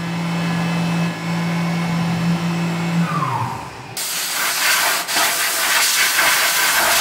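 Tormach 1100MX CNC mill running a 3/8-inch end mill at 5000 RPM under flood coolant, with a steady whine that falls away about three seconds in as the spindle winds down. About a second later a loud, steady hiss starts suddenly and carries on to the end.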